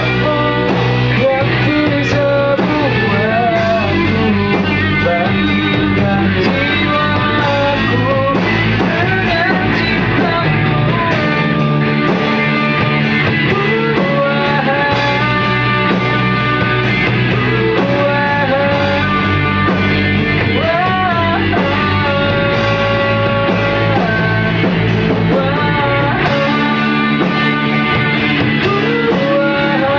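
A rock band playing through a song at rehearsal: guitar melody with bent, held notes over a steady bass line.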